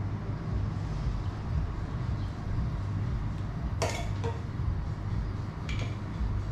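Whirlpool bathtub's pump and jets running with a steady low hum. A sharp clink comes about four seconds in and a fainter one near the end.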